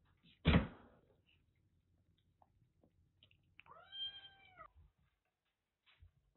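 A single dull thump half a second in, followed by faint clicks of a kitten lapping milk from a metal dish. About three and a half seconds in, a cat gives one clear meow lasting about a second.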